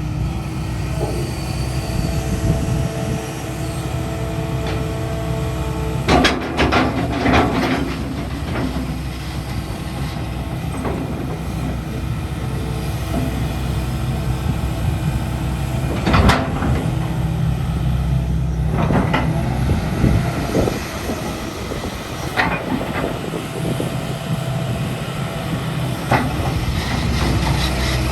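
Hitachi ZX250LC-5N excavator's 5.2-litre Isuzu diesel running steadily, with bursts of metallic clanking and squealing from the machine's steel tracks and working parts several times.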